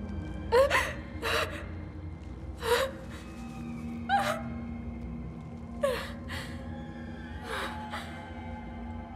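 A woman's short, sharp gasps, about seven of them at uneven intervals, each with a brief rising catch in the voice. Under them runs a low, droning horror-film score, with a held low tone coming in partway through.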